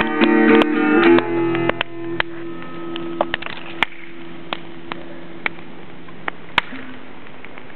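Acoustic guitar's final strummed chords ringing out and fading over the first second or two. After that, a wood bonfire crackling with sharp scattered pops, roughly one every half second to a second.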